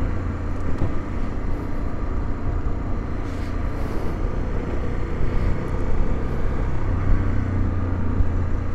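Honda XRE 300's single-cylinder engine running steadily as the motorcycle cruises at low city speed, with wind and road noise.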